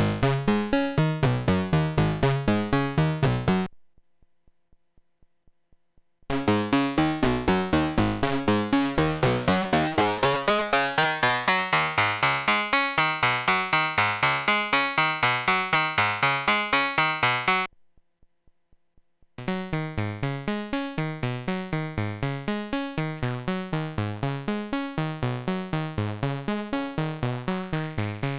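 CubuSynth Engine dual analog VCO module, built on the 3340 oscillator chip, playing a fast, even sequence of short synth notes. It stops twice for about two seconds; in between, the tone grows brighter and then mellows again.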